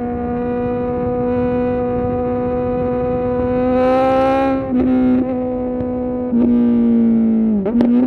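2020 Kawasaki Z900's 948 cc inline-four running hard at steady high revs through a full titanium SC-Project exhaust. The revs dip briefly twice about halfway through. Near the end the pitch falls, then jumps in a quick sharp blip.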